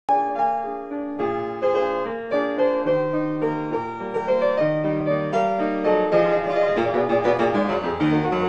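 Piano music: a melody of quick struck notes over a lower bass line.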